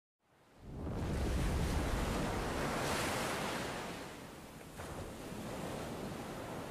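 Ocean surf: a steady rush of breaking waves fading up over the first second, with waves cresting about three and again about five seconds in.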